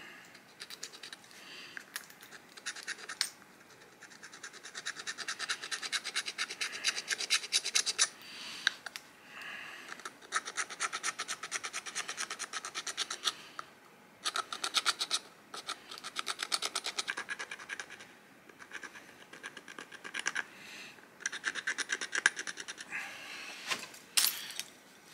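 Stone burin scraping along a length of bone in runs of quick rasping strokes, with short pauses between them. It is scoring a groove into the bone to cut out a needle.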